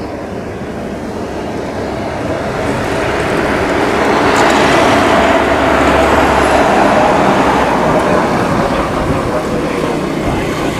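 Boeing 737-900ER's CFM56-7B turbofans at takeoff power: a rushing jet noise with a steady hum in it. It grows louder over the first five seconds or so, then holds and eases slightly near the end.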